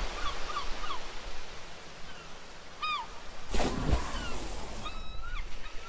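Open-sea ambience: a steady wash of waves with seabirds giving short, curving cries every second or so, and a brief whoosh about three and a half seconds in.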